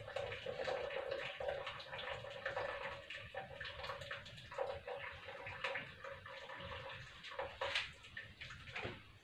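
Hot ginger and lemon-peel liquid pouring from a metal pot through a small sieve into a plastic jug, trickling and splashing as the jug fills. The pouring eases off near the end.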